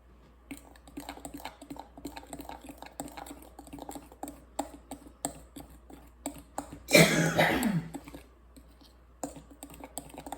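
A spoon stirring food colouring into pancake batter in a bowl, with quick irregular clicks and taps against the bowl. About seven seconds in comes a louder, longer scrape lasting about a second.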